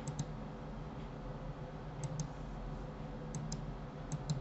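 Computer mouse clicking: four quick pairs of clicks spread over about four seconds, over a faint steady background hum.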